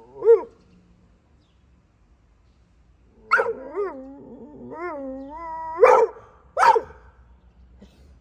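A dog gives a short yelp, then after a pause of a few seconds barks, lets out a wavering whine of about two seconds, and barks twice more.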